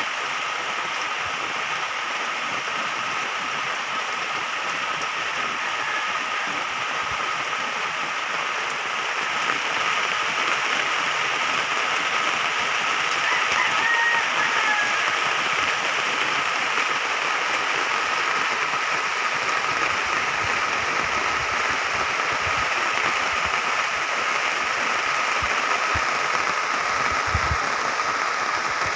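Steady rain falling on a plastic tarp roof, an even hiss that grows a little louder about nine seconds in.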